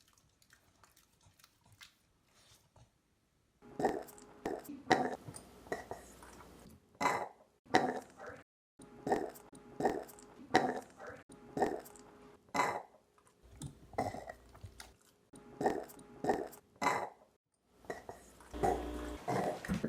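Puli dog burping over and over. After a few quiet seconds, about twenty short burps of steady pitch come in short phrases, with a longer one near the end.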